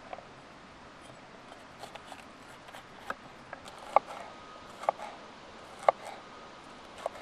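Chef's knife cutting a yellow bell pepper on a wooden cutting board: crisp cuts through the pepper, each ending in a knock of the blade on the board. A few light strokes come first, then sharper ones about once a second from about three seconds in.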